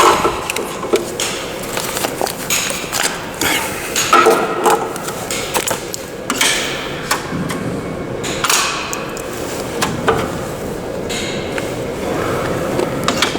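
Irregular metallic clicks, knocks and clinks at a coin payphone as coins are fed into the slot and drop straight through to the coin-return chute instead of registering.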